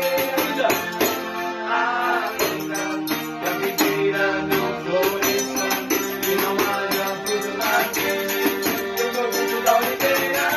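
Band music with a steady percussion beat of shakers or tambourine under sustained melody lines.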